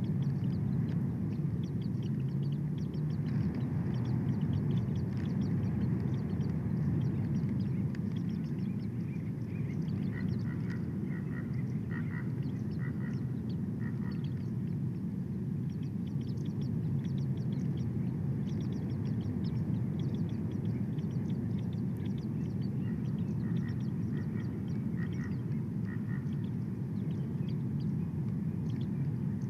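Steady low wind rumble on the nest-cam microphone. Over it a bird calls twice in runs of short, repeated notes, about two a second, with faint high chirps of small birds scattered throughout.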